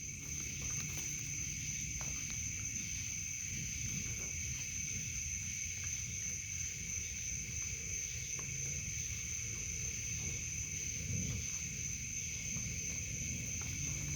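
Steady high-pitched chorus of night insects and frogs, two unbroken trilling tones running on without pause, over a low rumble.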